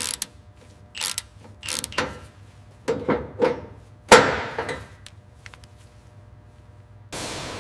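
Cordless ratchet and metal strap hardware on a tank clicking and clanking in a handful of separate strokes, the loudest a ringing clank about four seconds in. A steady hiss starts near the end.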